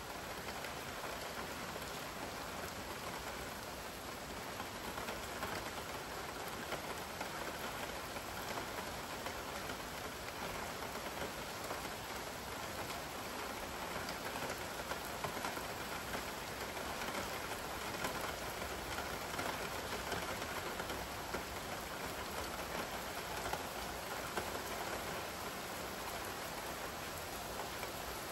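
Steady rain falling: an even hiss with scattered drops tapping through it.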